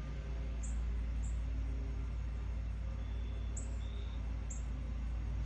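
Outdoor air-conditioning unit running with a steady low hum. Birds give a few short high chirps and two or three brief thin whistles over it.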